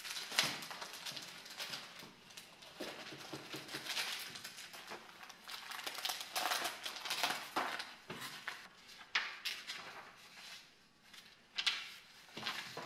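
Sheets of paper rustling and ring-binder pages being turned and shuffled by hand, in irregular bursts with short pauses between.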